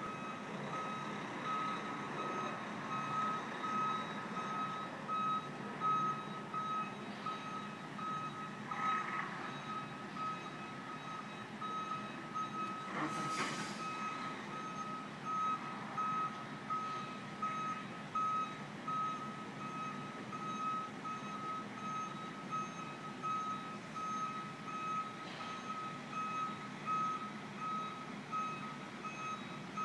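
Backup alarm of a reversing tractor-trailer beeping steadily at one pitch over the low rumble of its diesel engine. A short, loud hiss comes about thirteen seconds in.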